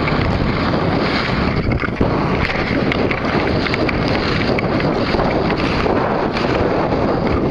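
Strong wind blowing across the camera microphone: a loud, steady rushing rumble with no breaks.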